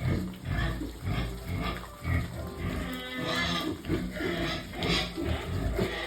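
Pigs grunting, a string of short grunts roughly twice a second, with a higher, brighter call a little past halfway.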